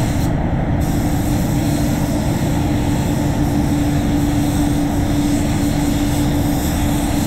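Steady drone of a paint spray booth's air system with a constant hum, under the hiss of a gravity-feed spray gun spraying clear coat. The high hiss drops out briefly just after the start, as the trigger is let off, then carries on.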